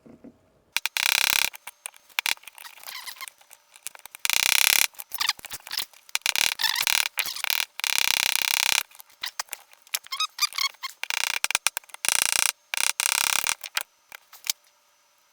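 Steel pin punch stuck in a pistol frame's roll-pin hole, twisted and worked to free it. It gives repeated bursts of harsh metal squeaking and scraping, with a few short squeals.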